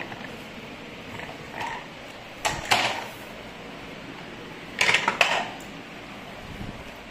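Plastic toy tractor and trailer being handled on a hard floor: two short bursts of clattering plastic clacks and creaks, about two and a half seconds in and again about five seconds in, with a few faint ticks before them.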